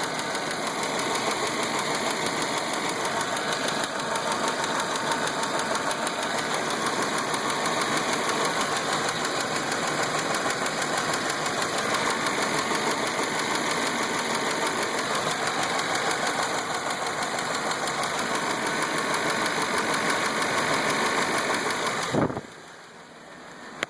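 Chevrolet engine idling, heard close up, with a fast tapping tick that gets louder as the engine warms up, which the owner wonders may be a noisy lifter. The sound drops away sharply after a bump near the end.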